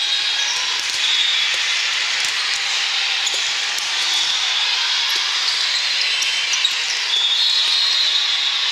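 Steady din of a large indoor sports hall during volleyball play: many distant voices, with high shoe squeaks on the court and scattered sharp ball hits. One hit stands out about six and a half seconds in.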